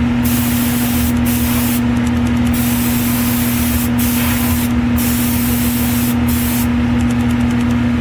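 Airbrush hissing as it sprays acrylic paint, in spurts that stop briefly several times as the trigger is released, over a steady low hum.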